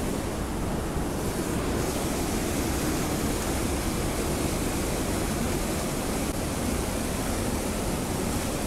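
Loud, steady rushing of a river waterfall pouring into a rocky pool.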